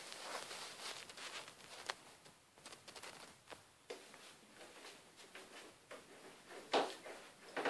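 Handling noise of a phone being moved and set in place: rustling, scraping and a few small knocks, with a louder scrape near the end. The sounds echo off the hard tiles of a small bathroom.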